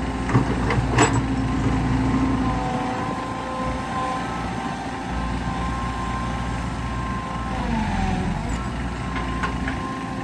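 Crawler excavator's diesel engine and hydraulics working while the bucket digs into rocky soil, with a few sharp knocks and scrapes of the bucket about a second in. The engine note dips briefly under load about eight seconds in.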